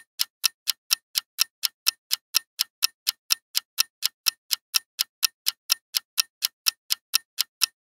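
Clock-ticking sound effect marking a quiz countdown timer: short, even ticks at about four a second.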